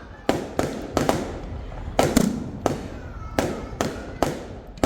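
Fireworks going off: about a dozen sharp bangs at uneven intervals, some followed by a short rumbling echo.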